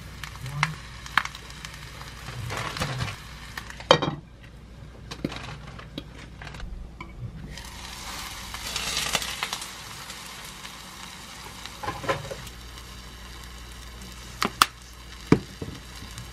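Rice, flying fish roe and cheese sizzling and crackling in a hot earthenware pot (ttukbaegi), the hiss swelling about halfway through, with a few sharp clicks and two knocks near the end.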